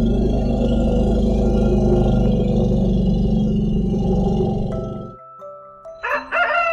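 A long, low, rough rumbling growl from an animal lasts about five seconds and then stops abruptly. Near the end a rooster begins to crow.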